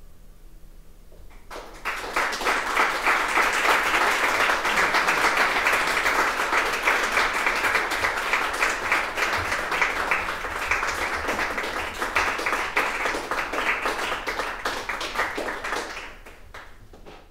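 Audience applauding. The clapping starts suddenly about a second and a half in, holds steady, and dies away near the end.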